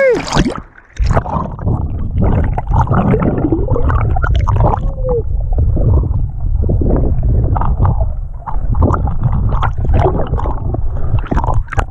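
Muffled, gurgling river water heard with the microphone submerged: a steady low rumble of current with scattered clicks and crackles of bubbles.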